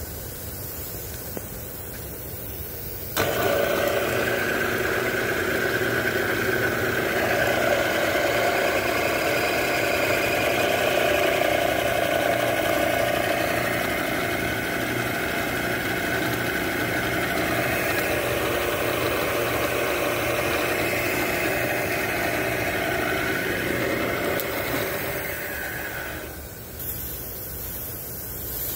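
Bridgeport 1.5 HP variable-speed vertical mill switched on about three seconds in, its spindle motor and head drive then running steadily with several steady whining tones. Near the end it is switched off and runs down.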